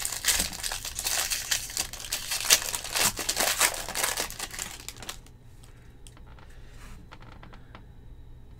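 Foil wrapper of a trading-card pack crinkling and tearing as it is ripped open by hand, for about five seconds; then it drops to faint handling of the cards.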